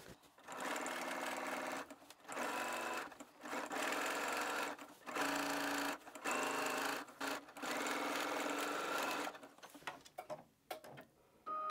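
Computerized sewing machine stitching a facing's understitching at a steady speed, in runs of one to two seconds with brief stops between them. It stops near the end.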